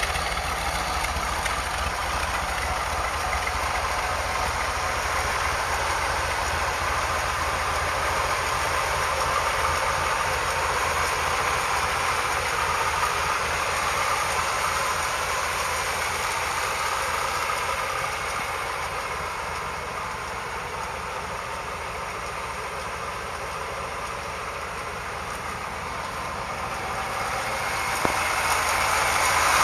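1974 Corvette L82 350 small-block V8 idling steadily, with an even low rumble. It grows louder near the end.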